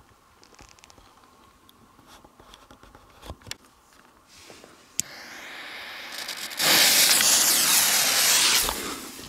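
Firecracker fuse being lit with a jet lighter: a sharp click, then a hiss that grows much louder about a second and a half later as the fuse catches and sprays sparks, cutting off about two seconds after that. Light clicks and knocks of handling on the rocks come before it.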